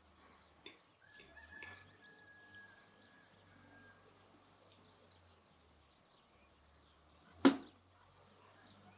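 Quiet eating: small clicks of a fork picking food from a platter, with faint bird calls in the background. About seven and a half seconds in comes one sharp knock, by far the loudest sound.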